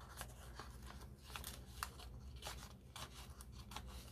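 Faint paper rustling with scattered soft ticks as hands work a thin vintage book page into a paper envelope pocket.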